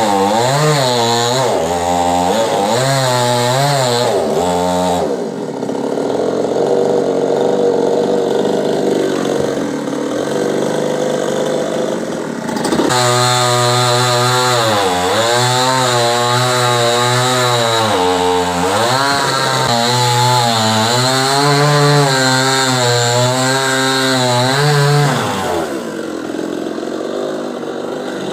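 Two-stroke chainsaw engine revving up and down again and again, with a rougher, steadier-pitched stretch in the middle, then dropping to a lower, quieter idle near the end.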